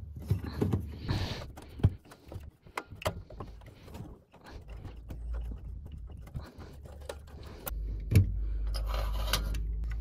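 Light clicks, taps and scrapes of a screw being undone and a furnace igniter being worked loose from its sheet-metal mounting bracket. A low steady hum comes in near the end.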